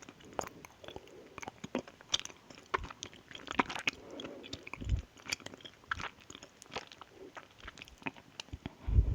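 Close-miked mouth sounds of chewing a soft, sticky strawberry mochi: many quick wet clicks and smacks, with two low thumps, one about halfway and one near the end.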